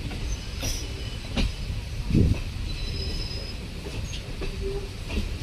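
Passenger train running on the track: a steady low rumble with a few sharp knocks in the first couple of seconds and faint thin high squeals around the middle.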